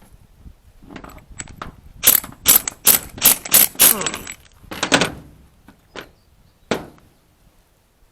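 A ratchet being worked: a run of loud, sharp ratcheting strokes at about two a second for some three seconds, with a few lighter clicks before and two single clicks after.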